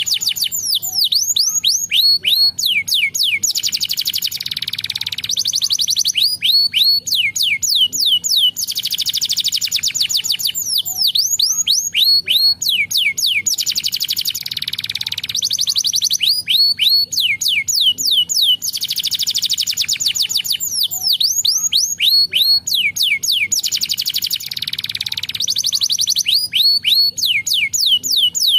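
Domestic canary singing a long, unbroken song: dense, fast rolling trills alternate with runs of rapid falling notes, repeating every few seconds.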